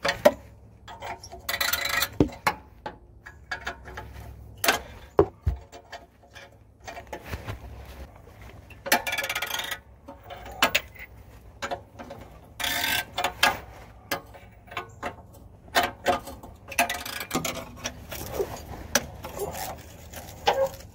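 Socket ratchet clicking in short runs as bolts are loosened, with scattered sharp metal clinks of tools and fasteners.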